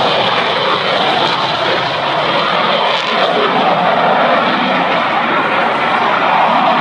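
Jet noise from an F-35B Lightning II's single F135 turbofan: a loud, steady rushing sound without breaks.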